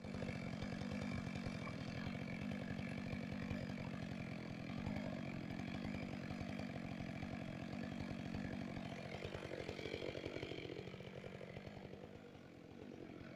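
Chainsaw engine running steadily and fairly quietly, with one rise and fall in pitch about ten seconds in.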